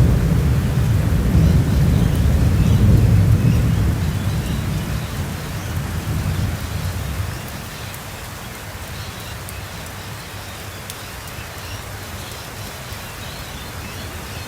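Thunderstorm: a long, deep roll of thunder that dies away about halfway through, over steady rain that carries on alone afterwards.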